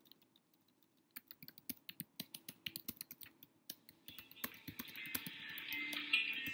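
Irregular clicking of typing on a computer keyboard, several keystrokes a second. About four seconds in, soft guitar music fades in and grows louder.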